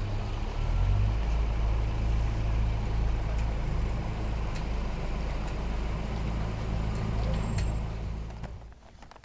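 A motor vehicle's engine running steadily, a low rumble under a constant hiss, fading away shortly before the end.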